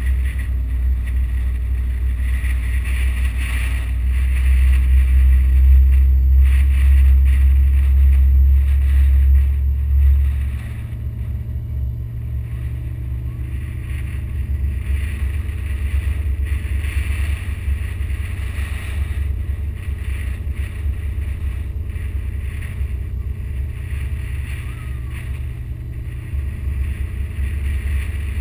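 A car driving slowly, its engine running low under a heavy rumble of wind buffeting the car-mounted camera's microphone. The rumble swells for a few seconds, then drops sharply about ten seconds in and goes on more unevenly.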